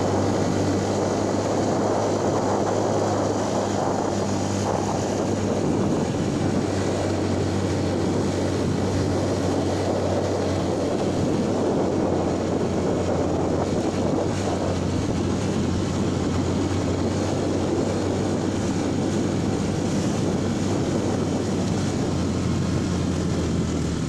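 Yamaha WR125R's single-cylinder four-stroke engine running steadily at low speed while the dirt bike is ridden along a gravel track.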